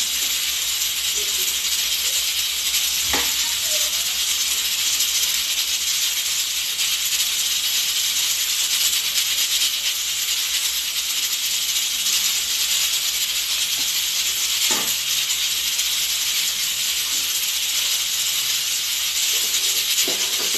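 Cooking on a gas stove: a steady high hiss, with a few light clinks about three seconds in, near the middle and near the end.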